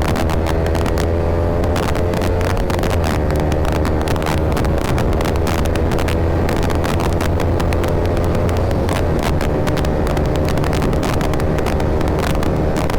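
Yamaha R15 V3's single-cylinder engine through an aftermarket Akrapovic R9 exhaust, running steadily under load at highway speed, its pitch climbing slightly in the first second or so and then holding. Wind buffets the microphone throughout.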